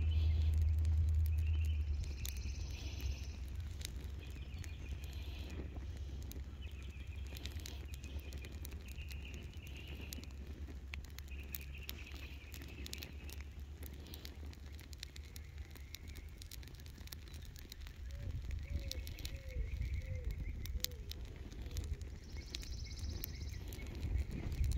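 A burning welcome mat crackling faintly with scattered small ticks, while birds call repeatedly in the background. Under it runs a low rumble that is loudest in the first two seconds.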